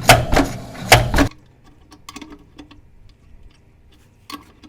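Motorbike shock absorber knocking: loud sharp knocks in close pairs, the noise fault being fixed, which stop abruptly a little over a second in, leaving only faint scattered ticks.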